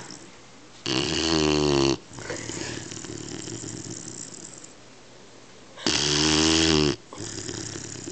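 A 12-week-old Weimaraner puppy snoring in its sleep: two loud snores about five seconds apart, each lasting about a second, with softer breathing between them.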